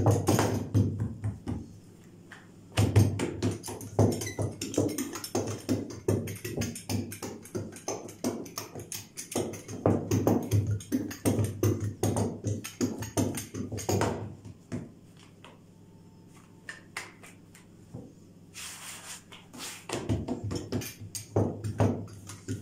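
Small handheld dough roller run quickly back and forth over a thin sheet of dough on a silicone mat: spells of rapid clicking and knocking, with short pauses about two seconds in and again around fifteen to eighteen seconds in.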